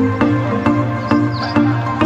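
Background music with a steady pulse of notes about twice a second over a held bass note.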